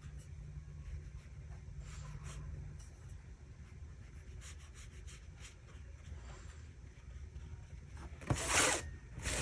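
Paintbrush strokes on watercolour paper, faint scratchy rubbing over a steady low hum, with one louder swish near the end.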